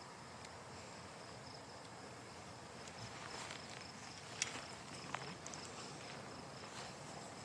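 Crickets chirping in a steady, high pulsing trill, with soft footsteps through grass and two sharp clicks about four and five seconds in.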